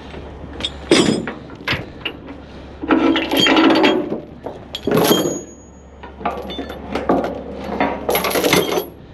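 Metal clanking and knocking: an irregular run of sharp knocks, rattles and scrapes with short pauses, one knock about five seconds in ringing briefly, over a low steady hum.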